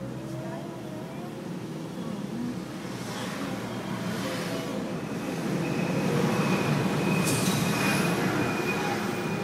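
Car engine and tyre noise heard from inside the cabin, growing louder as the car pulls away from a stop and picks up speed, with a faint steady whine near the end.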